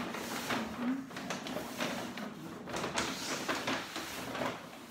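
Paper gift bag and tissue paper rustling and crinkling in irregular bursts as a cardboard box is pulled out of the bag.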